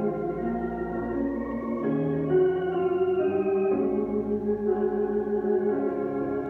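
Organ playing a slow wedding processional: sustained chords that shift every second or two.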